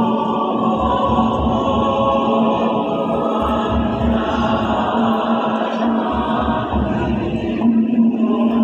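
Choir singing in parts and holding long chords, with a regular low pulse underneath.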